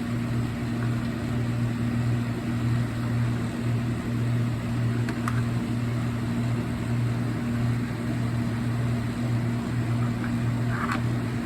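Steady low hum of a running appliance or fan, with a few faint clicks about five seconds in and near the end.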